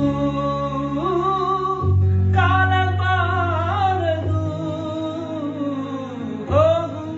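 A man sings a Kannada song in long, wavering held notes, accompanied by sustained chords on an electronic keyboard that change about every two seconds.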